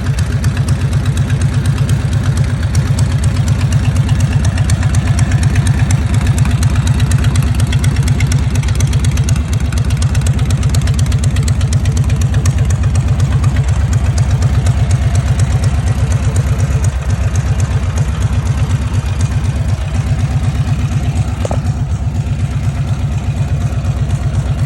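1940 Harley-Davidson ULH chopper's 80 cubic inch flathead V-twin idling, with a steady, evenly pulsing exhaust beat.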